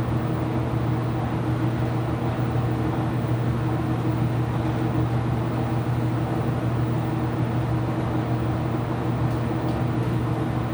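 IPSO washing machine running near the end of its cycle: a steady, unchanging motor hum.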